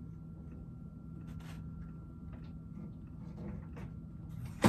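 Steady low hum of a quiet room with a few faint, light clicks, then one sharp click or knock near the end.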